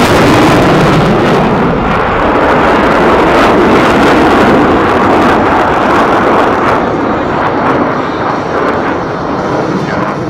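F/A-18 Hornet jet engines flying past, a loud, steady roar. The high hiss drops away about seven seconds in.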